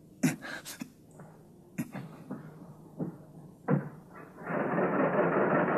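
A run of sharp knocks and bangs on a wooden door, as if a barred, padlocked door is being worked open. About four and a half seconds in, an old car's engine starts and keeps running loudly.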